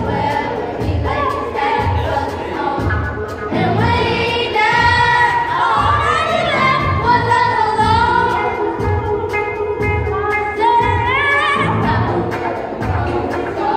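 A song playing: a singing voice that slides between notes over a steady beat.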